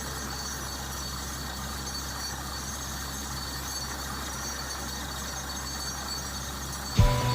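Borewell drilling rig's engine running steadily with a low hum. Near the end, a louder rhythmic knocking starts up, about two knocks a second.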